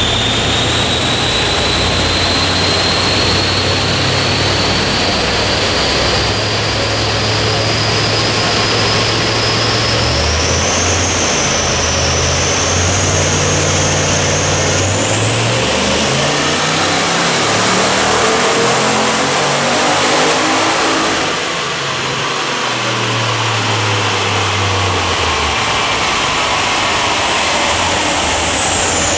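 Single-turbo V8 Holden VE SS ute running a pull on a chassis dyno: a steady, loud engine with a high whine that climbs slowly in pitch, loudest about two-thirds of the way in. It then eases off briefly, and the whine falls away near the end.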